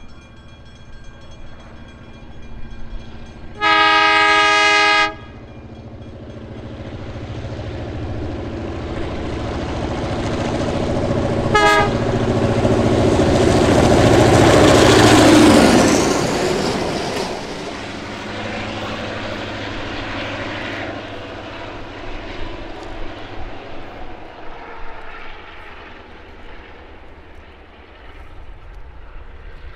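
Victorian Railways B-class diesel-electric locomotive sounding a long multi-tone horn blast, then a brief toot, as it approaches. Its EMD two-stroke diesel engine and wheels on the rails grow louder to a peak about halfway through as it passes, then fade into the distance.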